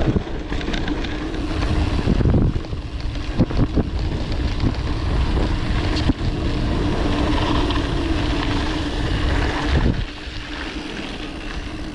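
Wind buffeting the microphone of a mountain biker's camera while riding, with a steady low hum under the rumble. Both ease off about ten seconds in.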